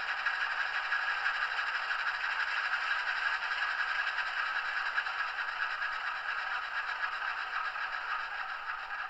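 Model C-420 locomotive's LokSound 5 sound decoder playing its diesel engine idle through the small onboard speaker, with the locomotive standing still. It is a steady, thin sound with no bass, easing slightly near the end.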